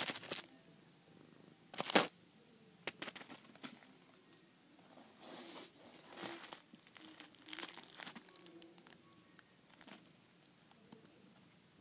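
Bursts of scratchy rustling and scuffling as a kitten pounces and scrabbles at a fluffy toy on carpet, the loudest about two seconds in.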